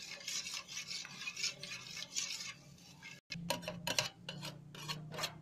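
A metal utensil scraping thick condensed-milk cream out of an open tin can, first as a run of rubbing scrapes. After a brief break about three seconds in, it gives a quick series of sharp taps and clinks against the can and bowl.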